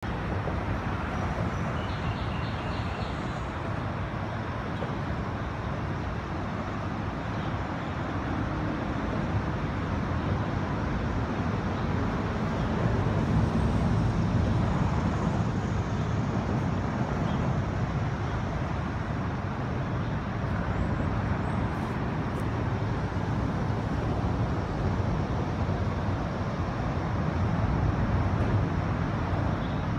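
Steady rumble of traffic on the elevated highway overhead, swelling louder twice.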